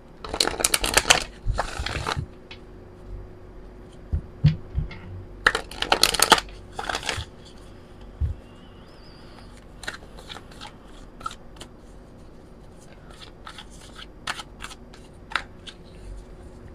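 A deck of oracle cards being riffle-shuffled: two dense rattling runs of card edges flicking together, near the start and about six seconds in, followed by scattered single card snaps and taps as the cards are fanned through.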